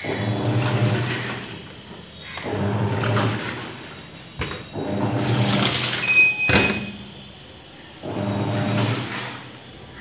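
Amazon Basics 6.5 kg top-load washing machine agitating a load in its wash cycle: the motor hums and the water swishes in surges that come back about every two and a half to three seconds. Two sharp knocks come midway.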